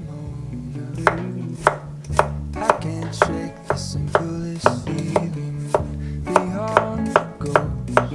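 Chef's knife slicing garlic cloves thinly on an end-grain wooden cutting board, the blade knocking on the wood about twice a second, starting about a second in.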